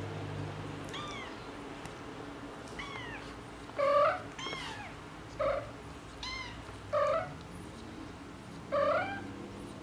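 Tabby mother cat meowing to her kittens: about eight short meows spread out, some higher and fainter, and four louder, lower ones bending upward in pitch, the loudest about four seconds in.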